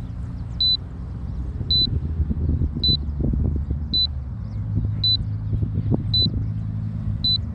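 Drone remote controller giving a repeating short, high warning beep, about one a second, seven in all, while the drone is held far out by strong wind. Strong wind buffets the microphone with a low rumble underneath.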